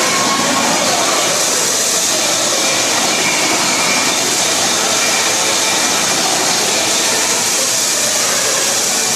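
Steady loud rushing noise, with faint voices beneath it.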